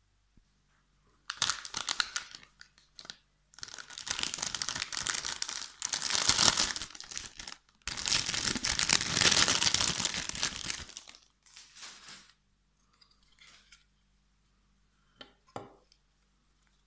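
Packaging being torn open and crinkled by hand in several long, noisy stretches, followed by two light clicks near the end.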